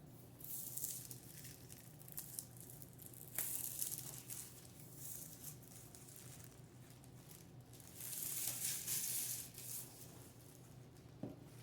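Plastic shrink wrap crinkling and tearing as it is pulled off a board game box, in three rustling bursts about a second long each, with a light tap near the end.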